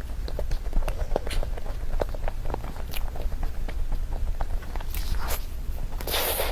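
Close-miked eating sounds of someone chewing a soft chocolate dessert: many small wet clicks and smacks of the mouth, with two short hissy bursts near the end.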